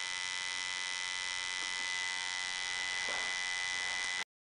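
Steady electrical hum with a high-pitched whine, cutting off suddenly near the end.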